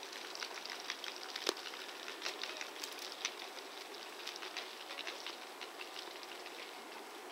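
Faint, irregular clicking and crackling over a light hiss.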